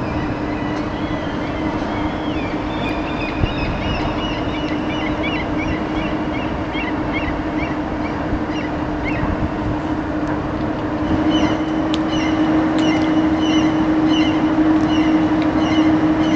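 Outdoor background of steady traffic-like noise with a constant low hum, and birds chirping and twittering throughout, busier in the second half.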